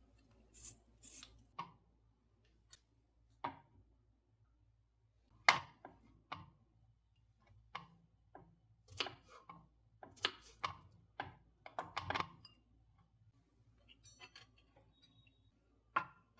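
Light knocks and clicks at uneven intervals, with a thicker cluster about two thirds of the way through: things being handled and set down.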